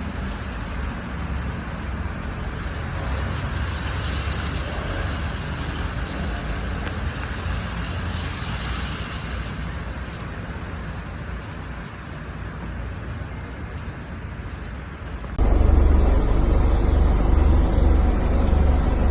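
Road traffic noise: vehicles running on a road as a steady rushing hiss. About fifteen seconds in it cuts abruptly to a louder stretch with a heavy low rumble.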